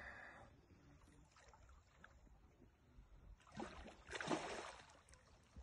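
Water splashing, with two short louder splashes about three and a half and four seconds in against a near-quiet background.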